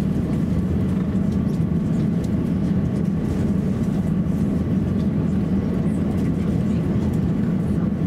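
Steady low rumble inside the cabin of an Airbus A350-1000 taxiing, its Rolls-Royce Trent XWB engines at low taxi power, with a faint steady whine above the rumble.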